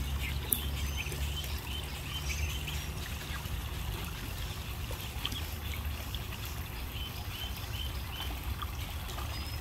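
Water trickling steadily from a small rock waterfall into a pond, with faint short high chirps now and then.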